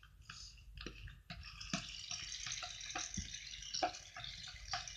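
Aerosol can of shaving foam spraying. A steady hiss starts about a second in, with scattered small pops as the foam spurts out.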